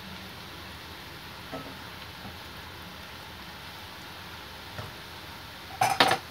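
Potato fries sizzling steadily in hot oil in a wok, with a couple of faint knocks of a spatula against the pan. Near the end, a brief cluster of loud knocks.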